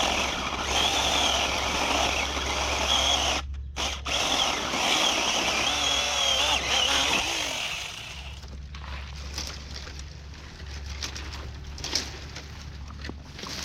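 Saker mini 4-inch cordless electric chainsaw cutting through wood, its motor whine wavering and dipping under load, with a brief stop about three and a half seconds in. The saw stops about eight seconds in, leaving scattered clicks and knocks.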